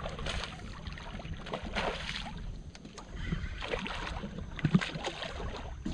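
A hooked redfish splashing at the surface beside the skiff in several short bursts, over a steady low wind noise on the microphone.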